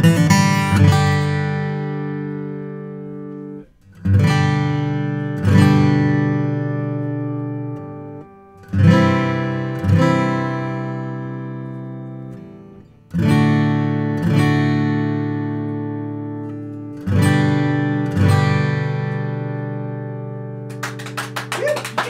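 Martin D-42 acoustic guitar with Sinker Mahogany back and sides, played in slow strummed chords, each left to ring and fade before the next. Applause starts near the end.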